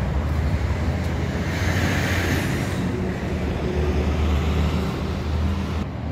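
Road traffic on a busy town main street: a steady rumble of passing cars, with a louder rush about two seconds in.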